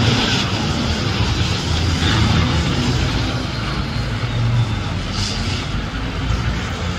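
An off-road 4x4's engine revving hard under load, its revs wavering.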